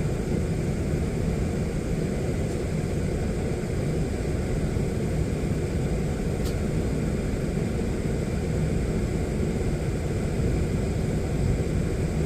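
Steady low rumble and hiss of an Airbus A380 airliner before take-off, with a faint click about six and a half seconds in.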